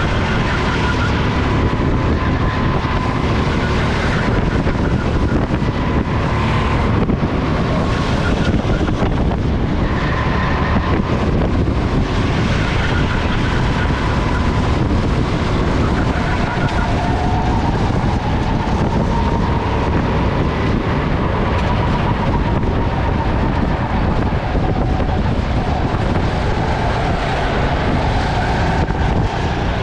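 Sodi RT10 go-kart engine heard from the driver's seat while racing, its pitch rising and falling with throttle through the corners, with wind noise on the microphone.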